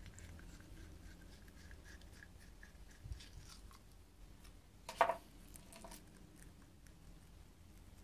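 Faint clicks from small metal parts being handled: the BMW M54 VANOS gear and bearing assembly being bolted up and worked by hand. There is a short knock about three seconds in and a sharper click about five seconds in.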